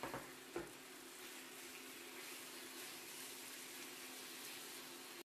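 Minced beef sizzling faintly in a hot nonstick frying pan, with two short knocks of a wooden spatula against the pan in the first second. The sound cuts off suddenly just before the end.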